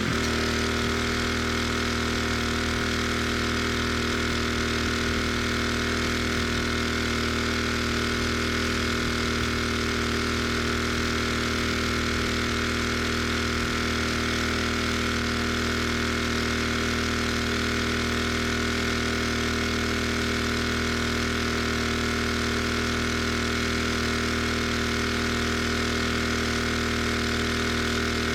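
Gas engine of a pressure washer running at a steady speed.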